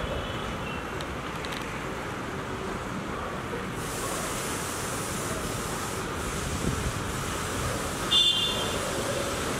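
Steady wind buffeting the microphone over a low hum of distant city traffic, with a brief high-pitched chirp about eight seconds in.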